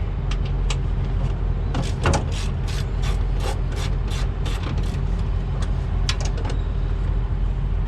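A hand ratchet clicking in a steady run, about three clicks a second, over the steady low hum of an idling engine.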